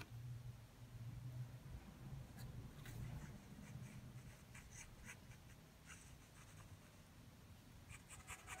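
Graphite pencil scratching faintly on drawing paper in quick short strokes, as an artist shades. The strokes begin about two seconds in and come thickest near the end.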